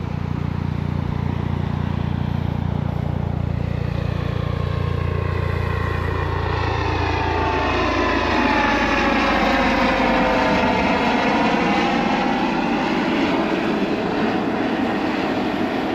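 Coast Guard aircraft flying low overhead, its engine sound growing louder and sweeping down then back up in pitch as it passes.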